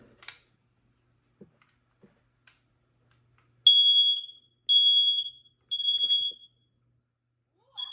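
SA150B battery smoke alarm sounding on test: a high, steady beep three times about a second apart, then a pause and the next round of beeps starting near the end, the temporal-three alarm pattern. A few faint clicks come before the first beep.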